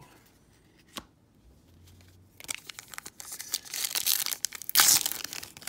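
A trading card pack's wrapper being torn open and crinkled, starting about two and a half seconds in and loudest near the end. A single light click comes about a second in.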